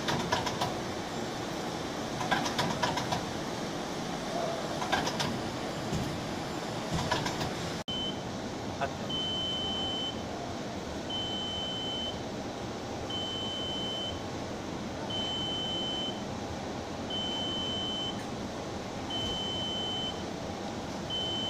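Automated parts-handling and inspection machine: clusters of metallic clicks and clatter from the gripper and parts every couple of seconds over a steady machine hum. About eight seconds in, the machine's high electronic beep starts, sounding for about a second every two seconds.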